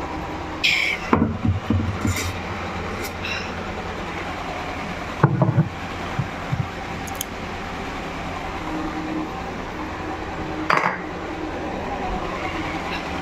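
Glass spice jars being handled and set down on a shelf: scattered clinks and knocks, with a heavier thump about five seconds in and a sharp clink near the end, over a steady low hum.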